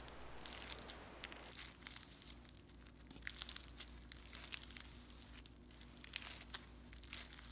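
Pink fishbowl slime, clear slime with fishbowl beads and glitter, being stretched and squeezed, giving faint, irregular crunchy clicks and crackles.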